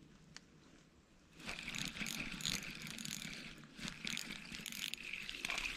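Spinning reel being cranked, its gears whirring and rattling steadily as line is wound in. It starts about a second and a half in.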